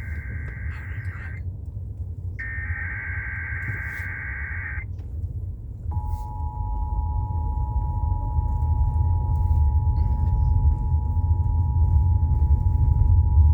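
Emergency Alert System SAME header data bursts over FM radio: two bursts of high-pitched digital warble, each about two and a half seconds, then after a short pause the EAS two-tone attention signal (853 and 960 Hz) sounds steadily for about eight seconds, announcing a required monthly test. A low rumble runs underneath and grows louder.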